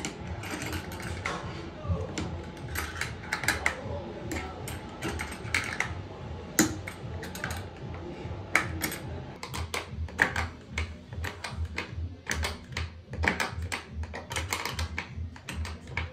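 Tongue-and-groove pliers clicking and scraping as they work a nut on a plastic toilet mounting bracket: irregular sharp clicks, several a second, over a steady low hum.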